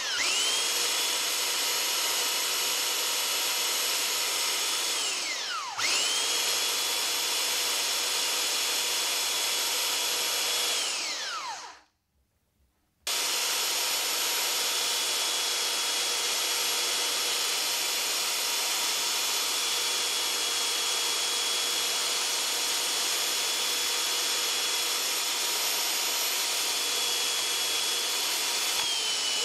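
A Holz-Her electric hand belt sander, mounted on legs as a bench sander, runs with a steady motor whine. It spins down twice, about five and eleven seconds in, each time falling in pitch, and starts up again, the second time after a second of silence. It then runs steadily while a block of wood is pressed to the belt, the pitch dipping slightly near the end.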